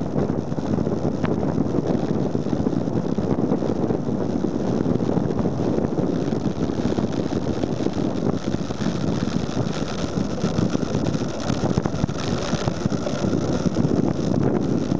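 Steady rush of wind over a bike-mounted compact camera's microphone during a fast bicycle descent, with tyre noise on the asphalt. A faint high whine joins in about halfway through.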